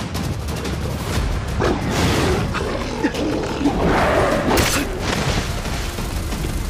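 Action-scene soundtrack: booming low percussion and music under sound effects for charging beasts, with growl-like swells and a sharp burst of noise about four and a half seconds in.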